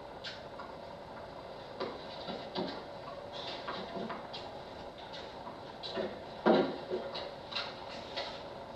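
Scattered knocks of tennis balls being hit and bouncing on a hard court, the loudest about six and a half seconds in, heard through a television's speaker.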